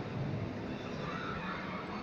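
Steady background ambience of an indoor shopping-mall atrium: an even wash of noise with no distinct events standing out.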